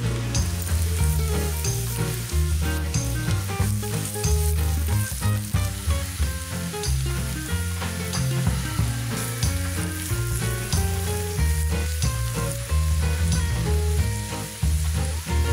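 Zucchini cubes sizzling in hot sunflower oil in a frying pan, a steady frying hiss. Background music with a steady beat and bass line plays over it and is the louder sound.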